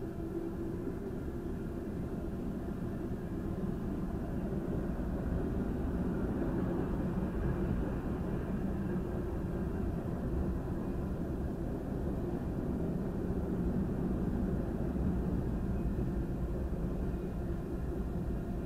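Freight train of hopper, tank and box cars rolling past a grade crossing, heard from inside a stopped car: the steady noise of wheels on rail, building a little over the first few seconds and then holding.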